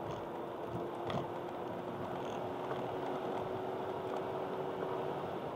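Honda Accord Type-S wagon heard from inside the cabin, cruising on a wet track: a steady engine note over a constant hiss of tyres on wet tarmac, with a few light ticks about a second in. The engine note drops away just before the end.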